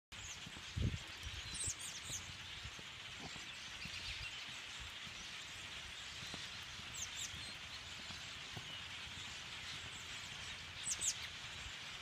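A large migrating flock of small birds passing overhead: a steady high chatter from many birds, with a few sharp high calls standing out here and there. There is a low bump on the microphone about a second in.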